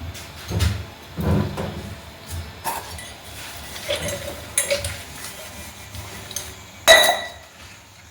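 Hard ceramic pieces and dishes being handled: scattered clinks and light knocks, the loudest a sharp clink about seven seconds in.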